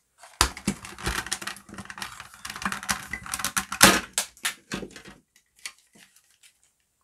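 Quick plastic clicks and rattles as a Dyson cordless stick vacuum cleaner head is pulled apart by hand, its housing and brush strip coming away from the clear base. The loudest click comes a little under four seconds in, and the clicking thins to a few faint ones for the last two seconds.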